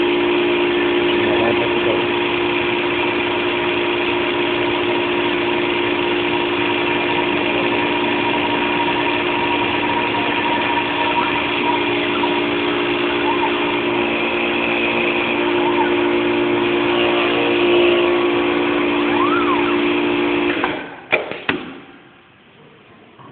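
Small CNC lathe running with a steady, loud mechanical hum. It stops suddenly about 21 seconds in, followed by a couple of sharp clicks.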